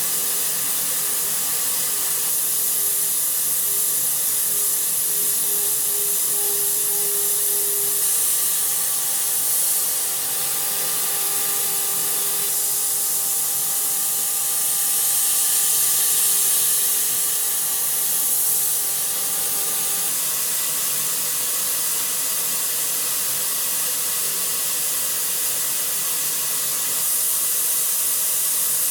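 CNC machining centre milling a profile with a small NS TOOL MHDSH445 end mill under a steady spraying hiss of coolant or air blast. A faint steady cutting tone joins it about five seconds in and stops about twenty seconds in.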